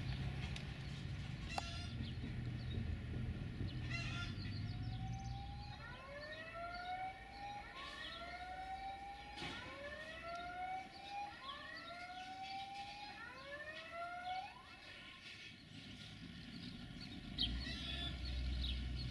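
A series of rising, siren-like wailing tones, each sweeping upward for about a second and a half. Some overlap, and they repeat for about ten seconds. A low rumble underlies the start and comes back near the end.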